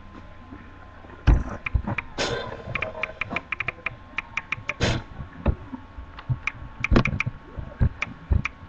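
Irregular runs of quick, sharp clicks and taps, with a few louder knocks about a second in and near five seconds in.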